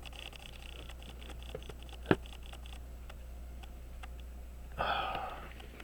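Small, sharp clicks of watchmaking tools against the parts of a pocket watch movement, with one loud click about two seconds in, over a steady low hum. A brief hiss comes shortly before the end.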